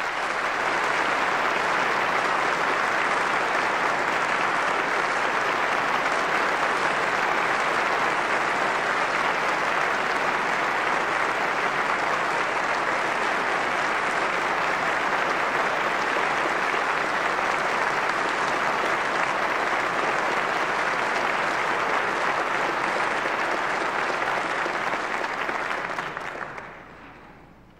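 Large crowd applauding steadily, then dying away near the end.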